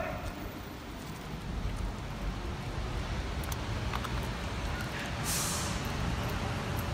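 City street traffic below, a steady low rumble mixed with the rush of rain. About five seconds in there is a brief high hiss.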